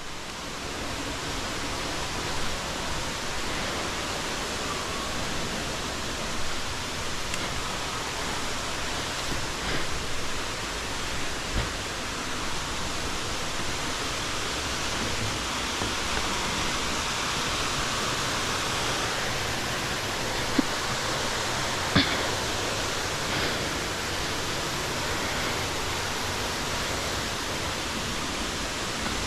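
Waterfall's steady rush of falling water. Two brief clicks about two-thirds of the way through.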